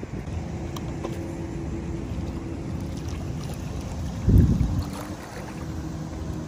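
Small electric motors of a cheap twin-propeller toy RC boat running with a thin steady whine as its propellers churn shallow water, over a low rumble of noise. A brief louder low rumble about four seconds in.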